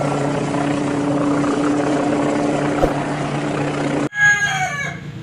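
Helicopter sound effect: steady engine and rotor noise with a low hum, cutting off abruptly about four seconds in, followed at once by a short, loud call-like sound.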